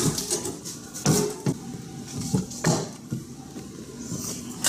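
Scattered knocks and rustling of movement in a truck's cab as a person climbs into the driver's seat, about five sharp knocks with the loudest about a second in.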